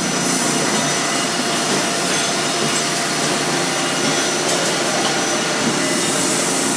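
Robotic production-line machinery running: a steady, even mechanical noise with a few faint constant tones in it.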